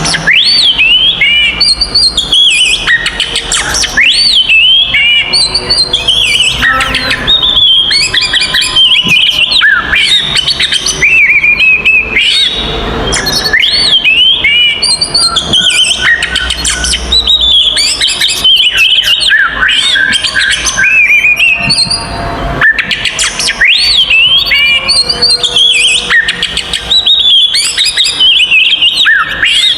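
Oriental magpie-robin (kacer) singing loudly in agitated, combative full song: a fast, unbroken run of varied whistles, chirps and trills sweeping up and down in pitch.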